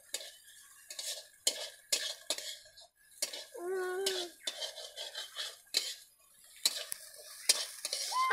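Metal spoon knocking and scraping against a metal cooking pan as food is stirred, in irregular clinks about twice a second.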